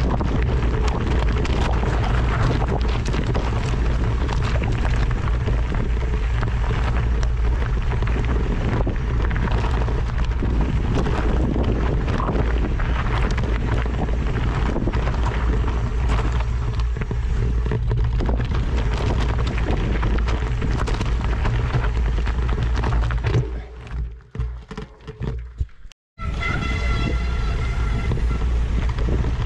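Heavy wind buffeting the microphone over a steady low rumble, as when moving at speed. It breaks up about three-quarters of the way in and cuts out for a moment, then music-like steady tones come in over the rumble near the end.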